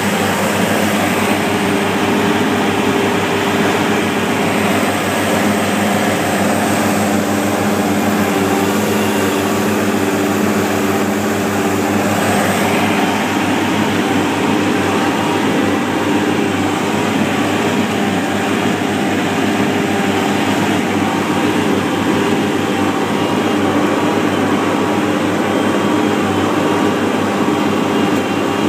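Blaw-Knox asphalt paver's diesel engine running steadily while the machine is paving, a loud continuous drone with a low hum.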